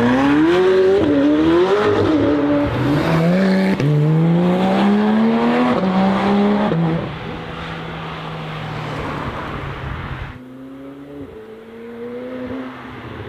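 McLaren 765LT's twin-turbo V8 accelerating hard: the engine note climbs in pitch and drops back at each upshift, several times in the first seven seconds, then fades. About ten seconds in, the sound cuts suddenly to a quieter engine note.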